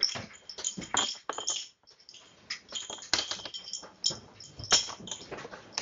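Irregular clinking and clattering of small hard objects, like dishes and loose items rattling as they are shaken by an earthquake, with a few sharper clinks standing out.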